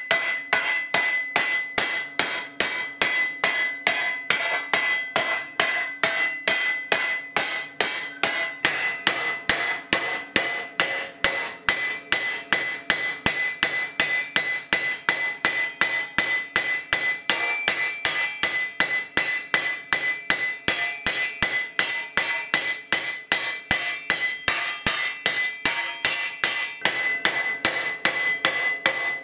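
Hand hammer striking a curved 4130 spring-steel armour plate on a steel anvil in a steady rhythm, about three blows a second. Each blow gives a sharp metallic clang, and a high ring from the steel carries on between the blows.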